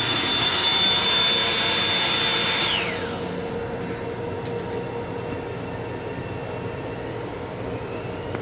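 A restroom appliance motor in a railcar starts with a loud rush of air and a high steady whine. It runs for about three seconds, then winds down and stops, leaving the steady hum of the moving train car.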